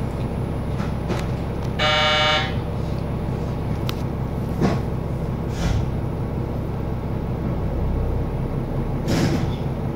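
Diesel train horn giving one blast of under a second, about two seconds in: the signal that the train is setting off again. It sounds over a steady low rumble, with a few short knocks afterwards.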